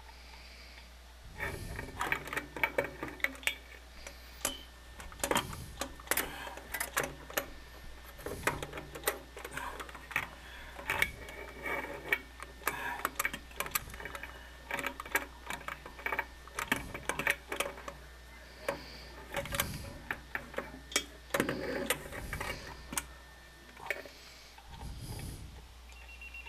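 Irregular metallic clicks, taps and scrapes of a wrench working a sink faucet's supply-line nut as it is fitted and tightened, starting about a second in.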